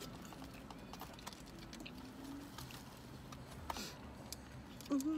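Scattered small clicks and taps of plastic forks against plastic takeout bowls while eating, with one sharper click about three and a half seconds in.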